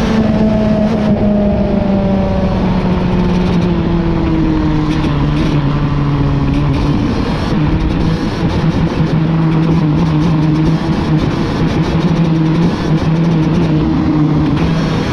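Rotax DD2 kart's 125cc two-stroke single-cylinder engine heard onboard at speed, its pitch falling steadily for about seven seconds as the kart slows for a corner, then steadier through the turn, over a steady rush of wind.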